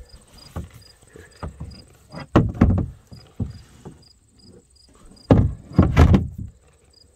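Knocks and rubbing of hands against the plastic hull of a Beavertail Final Attack layout duck boat, loudest in two spells about two and a half and five and a half seconds in. Crickets chirp steadily in the background.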